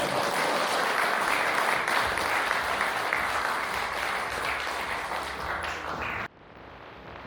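Audience applauding steadily, cutting off abruptly about six seconds in.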